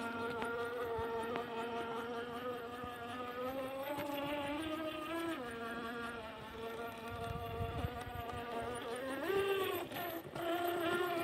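Traxxas TRX-4 Sport RC crawler's electric motor and gearbox whining as it crawls, the pitch changing with the throttle: it drops at the start, rises about four seconds in, drops again a second later and climbs near the end.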